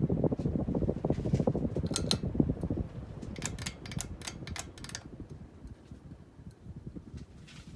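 Hunter Low Profile hugger ceiling fan whose air buffets the microphone with a low rumble that fades steadily, as if the fan is slowing down. A few light, sharp clicks and ticks come around the middle, in a quick cluster of about half a dozen.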